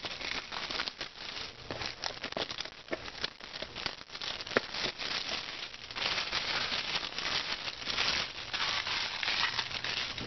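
Clear plastic shrink wrap being torn and peeled off a small cardboard product box, crinkling and crackling without a break. It grows denser and louder about six seconds in.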